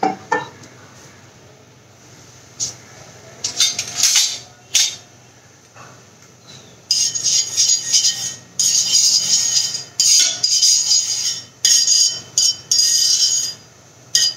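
A few light clinks of utensils, then a metal spoon scraping round the inside of a kadai in repeated strokes of about a second each, spreading a little oil over the pan.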